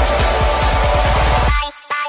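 Electronic dance music with a heavy bass line and a run of fast falling bass drops, breaking off suddenly about one and a half seconds in, leaving a few sharp hits near the end.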